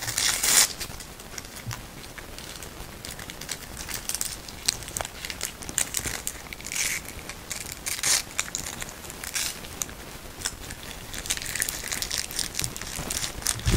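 Hook-and-loop (Velcro) straps handled and pulled apart by hand, making irregular scratchy rips, with the crinkle of a clear plastic wrapper around them. The loudest rip comes right at the start.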